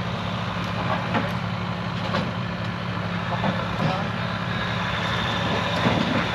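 Off-road vehicle engine running steadily at low revs, with scattered clicks and knocks over it.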